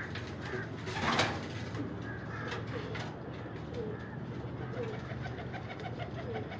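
Domestic pigeons cooing: short coo notes repeated every second or so, with a brief louder burst of noise about a second in.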